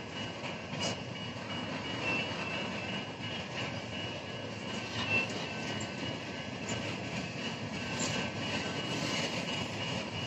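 BNSF intermodal freight train's flatcars, loaded with truck trailers, rolling slowly over a road crossing: a steady rumble and rattle of steel wheels on rail, with a few sharp clunks.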